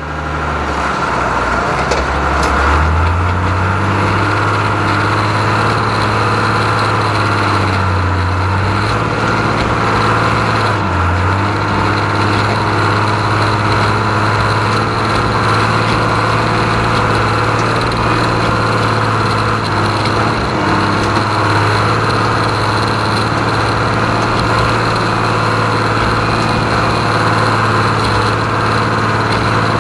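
John Deere 3130 LS tractor's six-cylinder diesel engine running steadily with a low, even drone, its pitch dipping briefly twice about a third of the way in.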